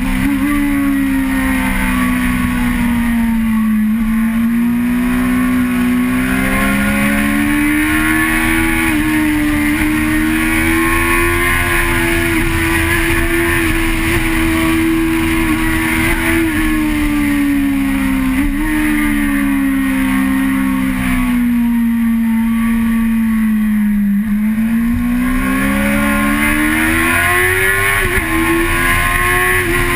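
Vehicle engine heard from onboard, running continuously, its pitch rising and falling slowly and smoothly several times as it speeds up and eases off, with steady wind and road noise.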